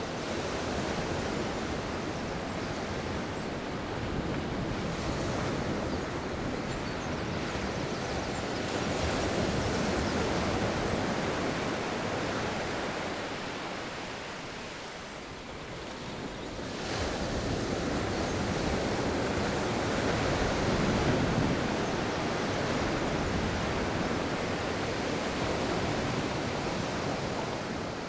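Sea waves breaking and washing on a beach with wind blowing over the microphone, the surf swelling and ebbing, with a lull before a new wave rises about two-thirds of the way through.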